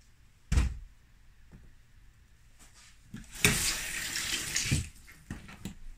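A piece of banana dropping into a plastic blender jar with one sharp thud. About three seconds later comes a second and a half of loud, even hissing noise, with a few light knocks after it.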